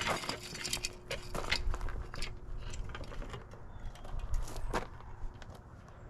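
Scattered footsteps with irregular clicks, knocks and crunches of someone moving about and handling things. They are busiest in the first half and thin out toward the end.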